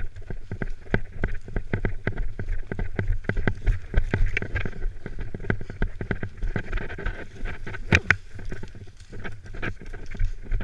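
Running footsteps crunching through dry leaf litter and undergrowth, with rustling of kit and the head-mounted camera, in a dense run of irregular crackles over a low rumble. A single sharp crack stands out about eight seconds in.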